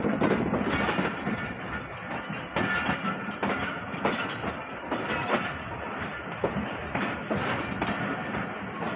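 Passenger coaches of the Karakoram Express rolling past as the train departs, a steady rumble of steel wheels on rail with frequent irregular clacks as they cross the rail joints.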